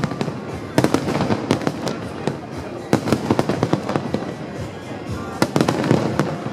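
Aerial fireworks going off: a rapid, irregular series of sharp bangs over continuous crackling.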